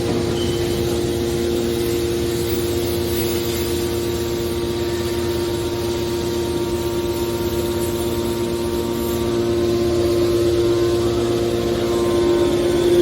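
Scrap metal baler machinery running: a steady mechanical hum with a strong droning tone over a low rumble, swelling a little near the end.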